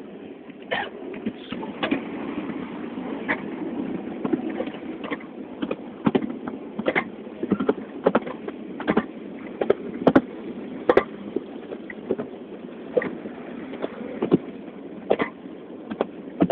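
Passenger carriage of a heritage railway train running along the line, a steady rumble with sharp knocks and clicks every second or so from the wheels and running gear, heard from inside the carriage.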